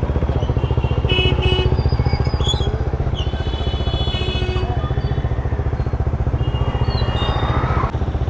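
Bajaj Dominar 400's single-cylinder engine, fitted with a replica aftermarket exhaust, running at low revs with a steady pulsing beat while creeping through a traffic jam. Horns from surrounding traffic sound briefly several times.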